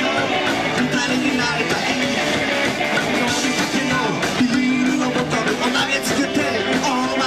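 Live rockabilly band playing: slapped upright bass, electric guitars and drums, with a man singing lead.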